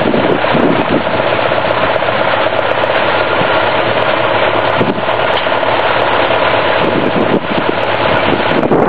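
1951 Farmall M tractor's four-cylinder engine running steadily, with wind rumbling on the microphone.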